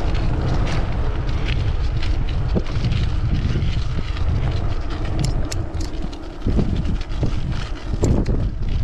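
Wind buffeting the camera microphone as a mountain bike climbs, a steady low rumble with scattered short clicks from the bike and trail.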